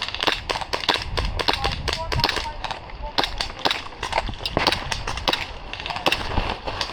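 Airsoft guns firing: sharp snapping shots in irregular singles and short strings, several a second, with faint distant voices.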